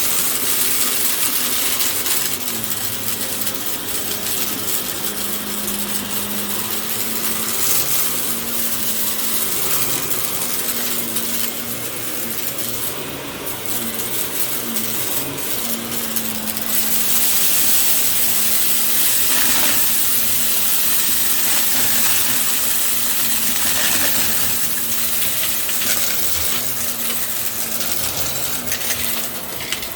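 Bissell compact vacuum cleaner running steadily with a wavering motor hum and a constant rush of air, peppered with rapid clicks and rattles.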